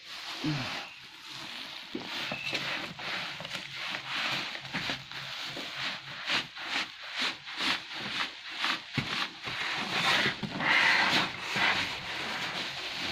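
Black plastic bag and bubble wrap crinkling and rustling as they are pulled and handled off a boxed stove, in irregular crackly bursts, loudest near the end.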